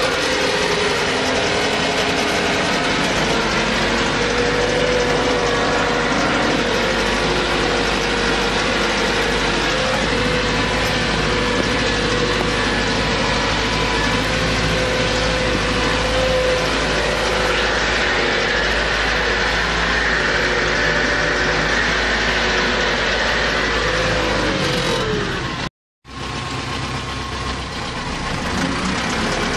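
Т-40АМ tractor's air-cooled diesel engine running steadily under load as it drags a felled log, heard from inside the cab. Near the end the engine note falls away, the sound cuts out for a moment, and it picks up again.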